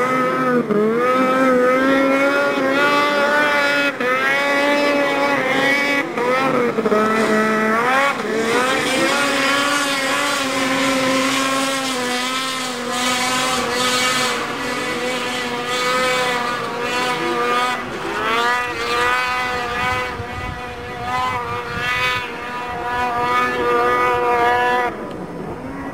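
Snowmobile engine at high revs under hard load on a hillclimb run, its pitch rising at the start and then dipping and recovering again and again as it works up the slope. It fades somewhat just before the end.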